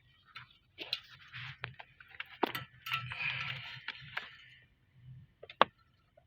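Plastic clicks and a short scraping as the vent valve (air flap) in a BMW 3 Series heater box is turned by hand, its actuator motor removed. There are several sharp clicks, with the loudest one near the end.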